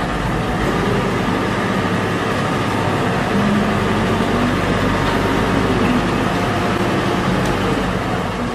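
Engines of two heavy forklifts running steadily as they drive together carrying a single huge log.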